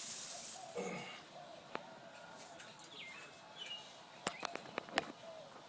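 A few short bird chirps, then several sharp clicks and taps about four to five seconds in.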